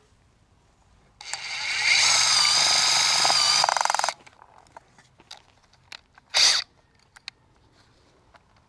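Makita 40V impact driver driving a Simpson SDS structural screw through a steel HGAM bracket into wood. The motor whirs up in pitch and runs steadily for about two seconds, then goes into a rapid hammering for about half a second before stopping. A short second burst from the driver comes a couple of seconds later.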